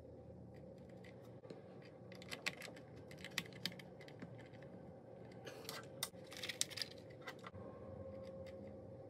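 Faint clicks and taps of the plastic body and frame arm of a DJI Mini 4 Pro drone being handled and fitted together, with a brief scraping rattle about six seconds in.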